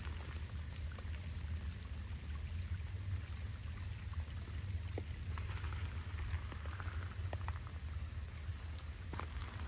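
Storm runoff pouring and running steadily through a drainage pipe and stone after a downpour, with scattered drips.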